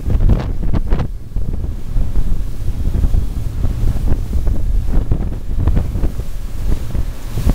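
Wind buffeting the microphone of a Bluewater 2550 boat running at speed, over the rush of churning water in its wake.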